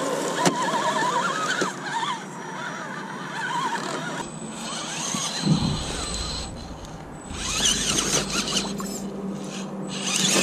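Electric motors and geared drivetrains of radio-controlled rock crawlers whining as they creep over rock, the pitch wavering up and down with the throttle. The sound changes about four seconds in, with a low rumble and a thump soon after.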